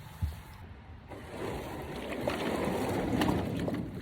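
Water sloshing and splashing against a kayak, a rush that swells for a couple of seconds and then fades, after a dull knock on the hull just after the start.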